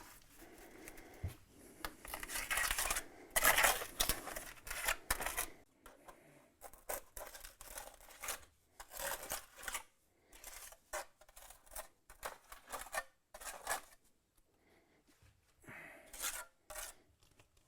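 Mason's trowel scraping and working mortar on brick: a run of rasping strokes, longer and louder in the first five seconds or so, then shorter strokes at uneven intervals.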